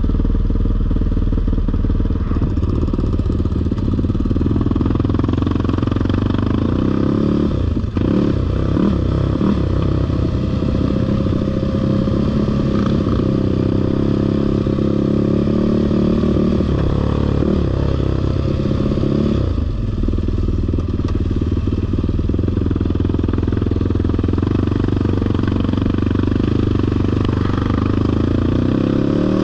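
Sport ATV engine running under throttle along a trail. It runs steadily, and its pitch shifts with the throttle, changing noticeably about eight seconds in and again about twenty seconds in.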